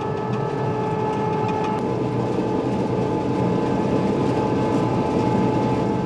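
A 1990 Riecam RBM 230 sugar beet harvester at work, heard from inside its cab: the steady running of its six-cylinder Deutz diesel mixed with the harvesting machinery, with a steady whine over a rough rumble.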